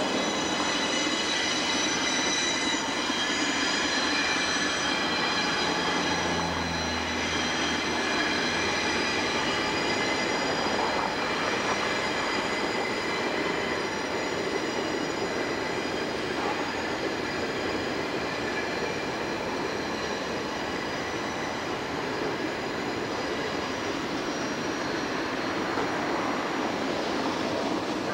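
Passenger train cars rolling across a steel truss bridge: a continuous rumble with a steady high-pitched wheel squeal over it, and a low hum for a couple of seconds about six seconds in.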